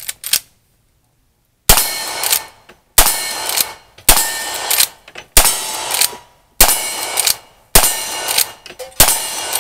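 Lever-action rifle fired seven times in steady succession, about one shot every second and a bit, the lever worked between shots. Each report is followed by a short ringing decay, the steel targets being hit.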